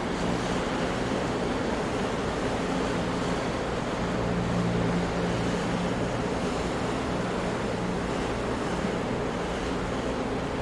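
Ocean surf: waves breaking continuously in a steady rush of noise, swelling slightly about four seconds in, with no single distinct crash.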